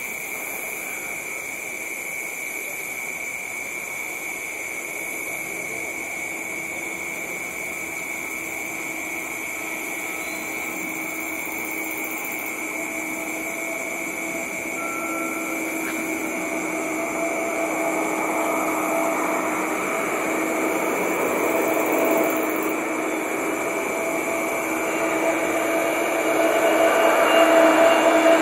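Twin-engine jet airliner approaching to land, its engine noise growing steadily louder over the second half, with two steady hum tones coming up. A steady high tone runs underneath.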